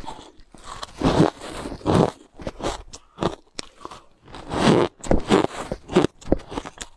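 Close crunching and chewing of fine, snow-like ice being bitten and eaten, in an irregular run of crunches of varying strength, mixed with the gloved hand scooping and crunching through the ice in a plastic bowl.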